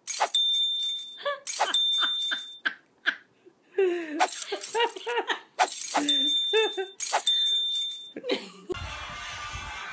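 A toddler's voice making short high-pitched sounds and babbling, without clear words. It alternates with four short hissing bursts, each carrying a thin steady high tone.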